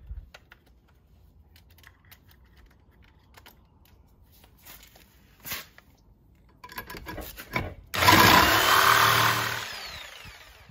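Corded Ryobi jigsaw fitted with a metal-cutting blade, trimming the broken aluminium skeg of a stern-drive lower unit. Light clicks of handling come first, then a stuttering start, and from about eight seconds in a loud steady cut that fades as the saw winds down near the end.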